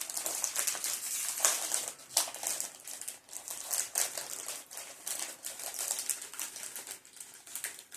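Plastic snack wrapper crinkling and crackling as it is handled and torn open by hand, a rapid irregular patter of sharp crackles that thins out near the end.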